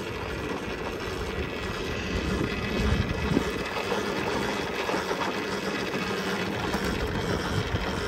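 Volcon Grunt electric motorcycle rolling slowly down a steep, rocky dirt track: a steady rumble of the chain-drive bike and tyres on loose gravel with a faint hum. A couple of louder knocks come about three seconds in.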